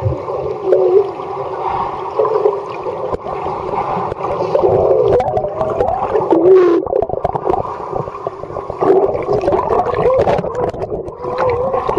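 Pool water heard through a camera held underwater: muffled gurgling and bubbling with wavering, warbling tones and a few sharp clicks.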